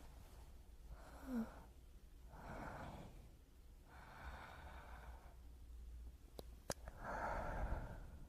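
Close-miked human breathing for binaural ASMR: four slow breaths, the last one the loudest, with two sharp lip or mouth clicks a little after six seconds.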